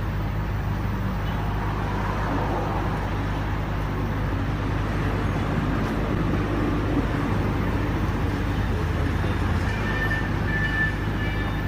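Steady low droning hum of running machinery over a broad rumble, with no single event standing out.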